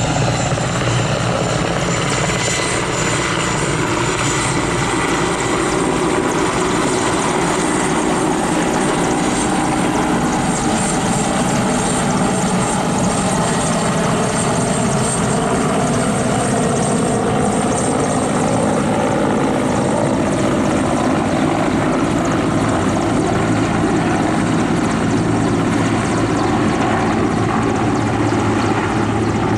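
Steady, unbroken roar of an airplane in flight heard from inside the cabin: engine and airflow noise at an even level.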